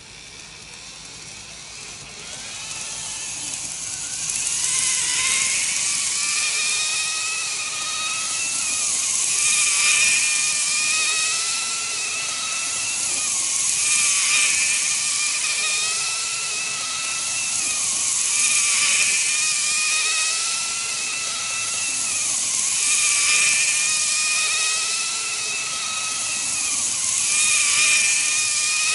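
Motor whine of an N-gauge model electric train powered by a KATO power unit, running on track. The whine builds up over the first few seconds, then dips and swells in pitch and loudness about every four to five seconds.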